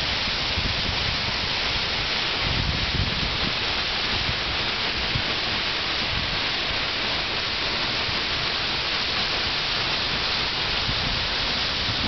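Steady rush of a tall waterfall falling into its pool, an even noise without pauses.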